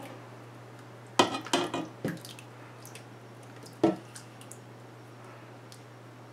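Canned diced tomatoes sliding out of the can into a stockpot of chopped vegetables, with wet plops and squelches. There is a short cluster about a second in, another plop just after two seconds, and a single sharper one near four seconds.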